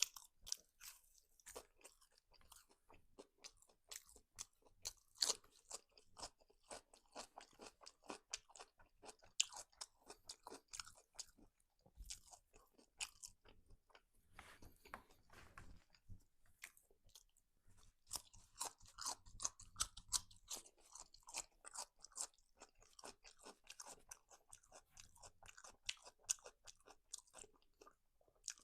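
Close-miked mouth chewing and crunching food, a dense run of quick wet clicks and crackles. These are mukbang eating sounds from a meal of cutlet and french fries.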